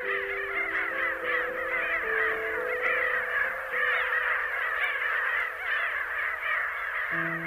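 A dense, unbroken chorus of many birds calling at once, in overlapping rising-and-falling chirps. Beneath it, a few low held notes step to a new pitch every second or so, like a slow synth backing.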